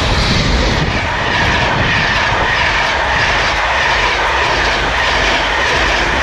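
Electric express passenger train passing close by at line speed, around 115 mph, as the first train over newly laid switches and crossings. The sound is loud and steady throughout.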